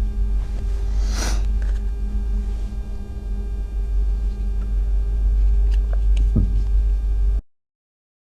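Steady low electrical mains hum, with a brief rustle about a second in and a few faint clicks and a knock of hand work near the end. The sound cuts off abruptly just before the end.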